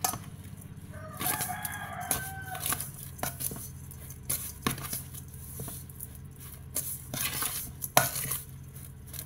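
Hands tossing freshly grated coconut with salt in a bowl, with scattered clicks and knocks of the bowl and containers being handled. A rooster crows in the background about a second in, for roughly a second and a half. A steady low hum runs underneath.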